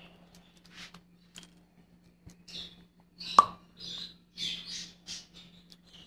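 Lovebirds chirping in short, high calls, again and again, over a low steady hum. A single sharp click about three and a half seconds in is the loudest sound.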